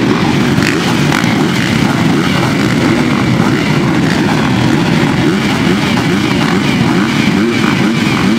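A full start line of motocross bikes running together at the start gate, their engines blending into a dense, steady drone. Some riders blip the throttle, so the pitch keeps rising and falling as they hold revs for the start.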